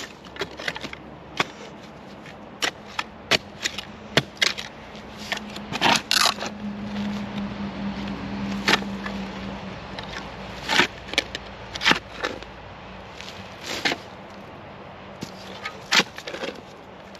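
Hand digging in rocky clay soil: a digging tool scrapes and strikes buried rocks in irregular knocks and scrapes. A faint low hum runs in the background through the middle.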